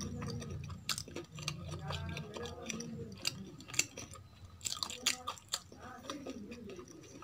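Wet chewing of rice and kadhi, with sharp mouth clicks and smacks scattered irregularly through.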